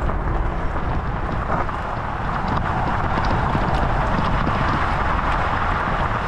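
Electric mountain bike's tyres crunching steadily over a loose gravel track, with wind rumbling on the GoPro's microphone.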